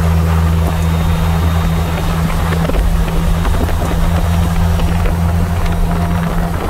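Polaris Slingshot open roadster cruising at steady road speed: an even, low engine-and-road drone with wind rushing over the open cockpit and the microphone.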